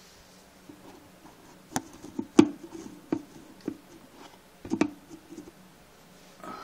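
Handling noise as a phone is moved and set in place: a handful of sharp knocks and rubs, the loudest about two and a half seconds in, ringing a little in a small tiled room.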